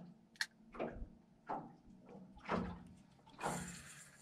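A run of irregular knocks and slaps, about one every half second to a second, each short with a brief trailing wash, and quieter gaps between.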